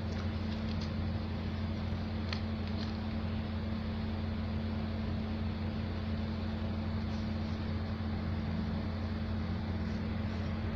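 A steady low machine hum with a constant pitch, and a few faint clicks in the first three seconds.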